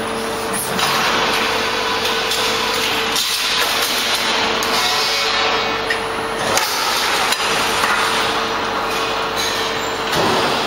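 Machinery of a coil packing line running: a steady mechanical din with a hum that stops about six seconds in, and a few scattered clicks and knocks.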